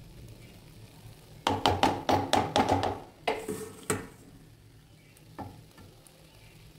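A serving spoon scraping and tapping against a non-stick kadai as paneer gravy is spread over rice: a quick run of clicks and scrapes about one and a half seconds in, then a few more knocks around the middle.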